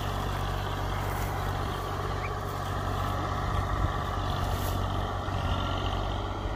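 Eicher 485 tractor's diesel engine running steadily under load as it drives a rotavator.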